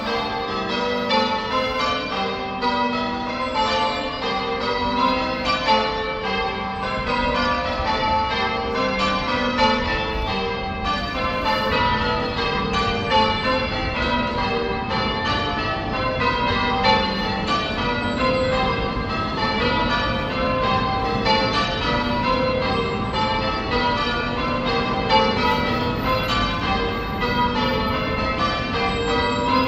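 Church bells ringing: a continuous run of strikes, one bell after another, their tones overlapping and hanging on as the next bell sounds.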